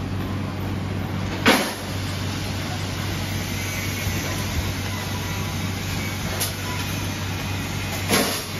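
Steady low hum of factory machinery over a constant noise haze, broken by a short sharp hissing burst about a second and a half in and another near the end.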